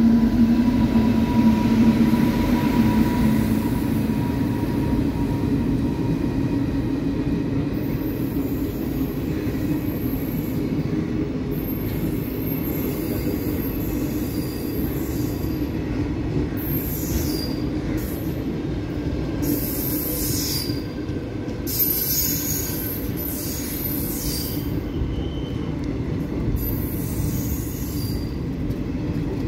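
Express passenger train's coaches rolling past at speed: a steady heavy rumble of wheels on rail, with a high squeal coming and going from about eight seconds in. It is loudest at the start, as the WAG-9 electric locomotive clears and the first coaches pass.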